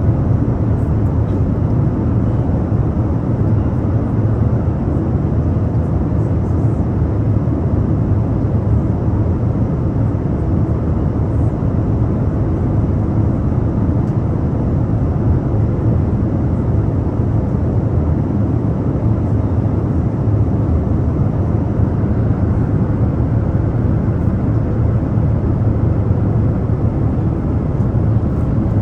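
Airliner cabin noise in flight, heard from a window seat: a steady, unchanging deep rush of engines and airflow.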